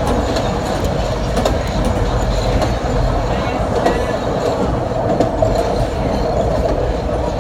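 Chicago 'L' Green Line train running on elevated track, heard from inside the car: a steady rumble of wheels on rail with occasional clicks.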